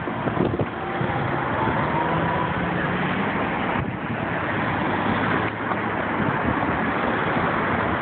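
Road traffic: cars pulling across an intersection close by, with engine and tyre noise throughout. A faint rising whine from an accelerating car comes in about a second in.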